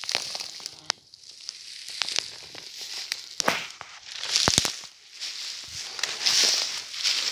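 Footsteps through dry forest undergrowth: twigs crackling and snapping underfoot and brush rustling, with louder bursts of crunching about halfway through and again near the end.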